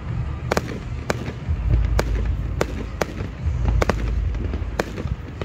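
Aerial fireworks exploding: a run of about seven sharp bangs, half a second to a second apart, over a continuous low rumble.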